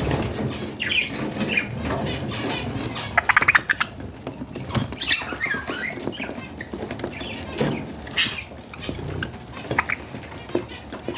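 Budgies giving short chirps amid rustling, scratching and bursts of wing flutter, with a quick run of chirp pulses about three seconds in.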